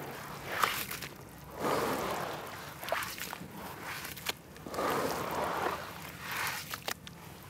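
Hands squeezing and kneading wet red dirt in a basin of muddy water: wet squelching and sloshing in swells every second or two, with a few sharp drips and splashes.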